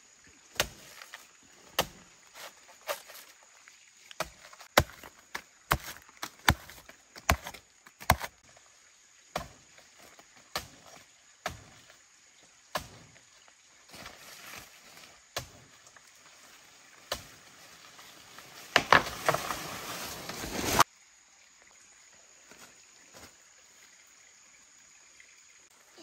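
A series of sharp knocks or strikes, irregular, roughly one a second, thinning out after about fifteen seconds. Near the end comes about two seconds of louder rustling, crackling noise that stops abruptly.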